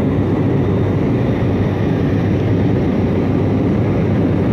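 Steady low rumble of an airliner's cabin in flight: engine and airflow noise heard from inside the passenger cabin.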